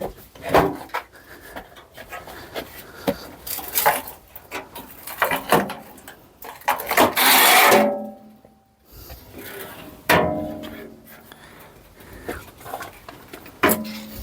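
Irregular clicks and knocks of a car's front wing being unfastened and worked off the body, with a loud scrape about seven seconds in and a ringing knock about ten seconds in.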